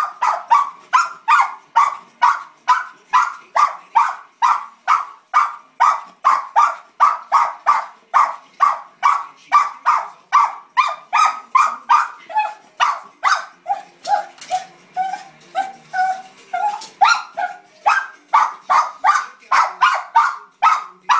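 Cairn terrier barking steadily over and over, about two to three sharp barks a second. For a few seconds in the middle the barks turn softer and lower, then go back to sharp, high barks.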